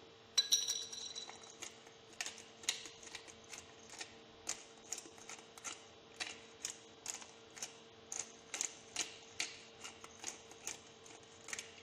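Salt and ground pepper being dispensed over a tuna mixture: a steady run of sharp clicks, about two or three a second, opening with a brief ringing clink. A faint steady hum lies beneath.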